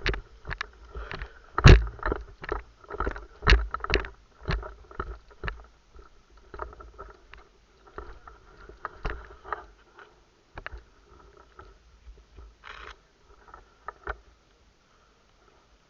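Quick footsteps at a running pace, about two a second with knocks of gear, slowing to scattered steps and stopping about fourteen seconds in.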